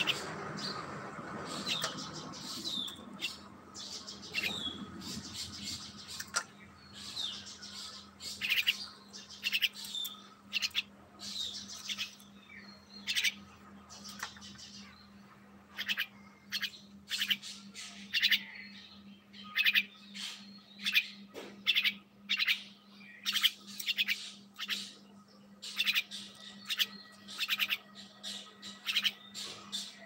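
Caged songbird giving short, sharp, harsh calls over and over, sparse at first and then about one or two a second, over a steady low hum.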